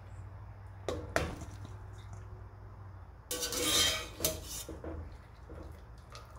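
A wire-mesh spider strainer clinking and scraping against a stainless steel pot and bowl as boiled pineapple pieces are scooped out and tipped into the bowl. There are two sharp clinks about a second in, a longer, louder rattling scrape a little after three seconds, then a few lighter clinks.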